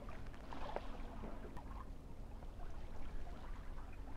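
Small waves lapping and trickling at the water's edge, a soft irregular splashing, with a faint steady low hum underneath during the first half.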